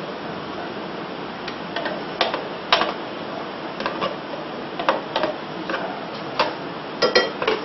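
Scattered light plastic clicks and knocks as the lid is taken off a countertop blender jar and a utensil is put into the pumpkin soup inside, over a steady background hiss. The taps come irregularly, a few close together near the end.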